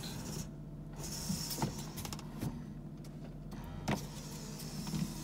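Electric rear-window sunshade of a Mercedes W210 E320 retracting: its small motor hums steadily as the shade lowers, with a few sharp clicks from the mechanism.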